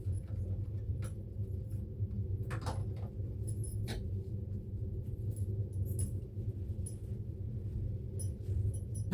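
Steady low hum of a ship cabin's air conditioning, with scattered light clicks and rustles of things being handled, and a sharp knock near the end.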